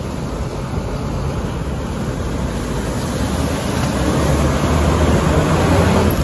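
A vehicle under way: engine drone with road and wind noise, getting gradually louder.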